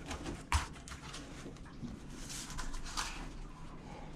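Scattered knocks, taps and scraping as plastic shower-drain and PVC parts are handled and tried in place, with one sharper knock about half a second in.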